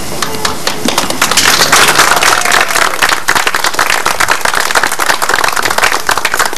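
Audience applauding, many hands clapping together; it swells about a second in and tapers off near the end.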